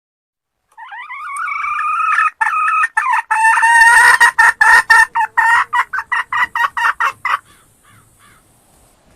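Red junglefowl hen cackling: a few drawn-out calls that break into a fast run of sharp repeated notes, about three or four a second, then stop abruptly.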